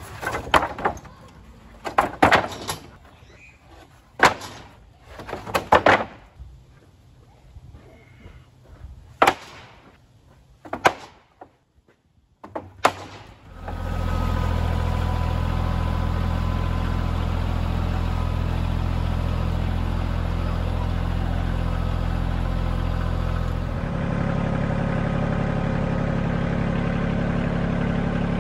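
Wooden pallets knocking and clattering as they are slid and stacked by hand, about eight separate knocks. Then, from about halfway, a Kioti CK2610 compact tractor's three-cylinder diesel engine running steadily, its sound shifting slightly near the end.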